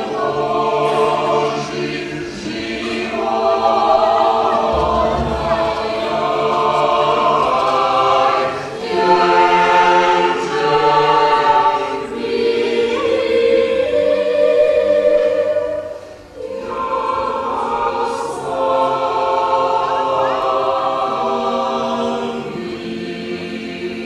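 Mixed a cappella choir of men's and women's voices singing held chords in long phrases, with a short break between phrases about two-thirds of the way through.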